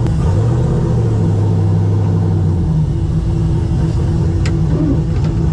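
Dr. Pepper Mustang race car engine running at low, steady revs while driving, heard from inside the cabin. It holds a steady low drone for the first few seconds, and there is a sharp click about four and a half seconds in.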